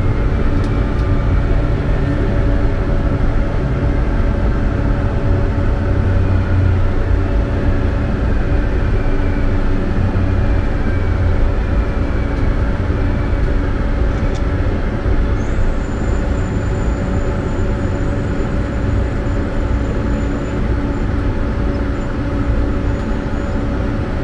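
Taipei MRT Circular Line medium-capacity train running, heard from inside the front car: a steady low rumble of wheels and running gear with a constant hum. A faint motor whine falls slowly in pitch over the first dozen seconds, and a thin high tone joins about halfway through.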